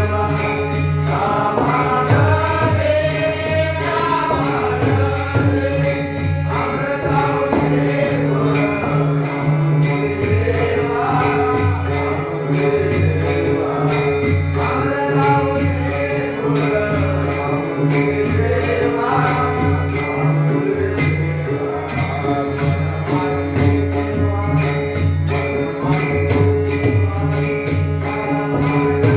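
Marathi devotional bhajan to Vitthal: a voice sings the melody over steady sustained low tones, with jingling percussion keeping an even beat.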